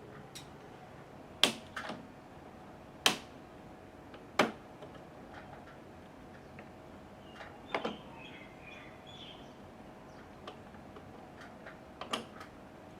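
Scattered sharp knocks and clicks, the loudest about one and a half, three and four and a half seconds in, over a faint steady hum, with a short run of bird-like chirps about eight seconds in.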